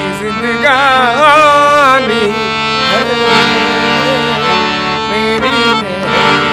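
Harmonium playing sustained reedy chords for live qawwali, with a voice singing a wavering, ornamented phrase about a second in.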